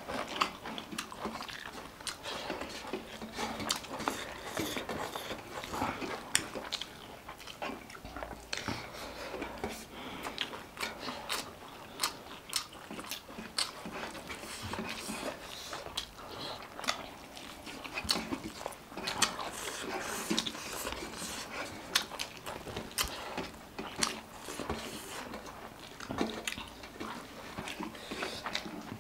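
Close-miked eating: chewing, lip smacks and crunching, with frequent sharp, irregular mouth clicks.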